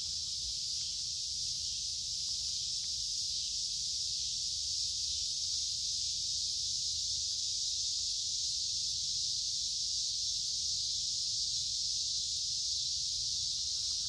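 A chorus of cicadas singing: a steady, unbroken, high-pitched drone that neither rises nor falls.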